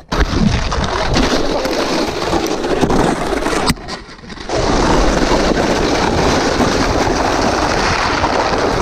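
Snowboards sliding and scraping over icy, crusted snow with riders sitting on them, a steady rushing noise mixed with wind on the microphone. A sharp knock comes a little before halfway, the noise drops briefly, then picks up again as the slide goes on.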